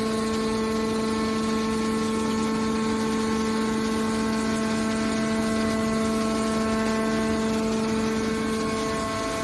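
Hydraulic metal baler running, a steady hum of unchanging pitch.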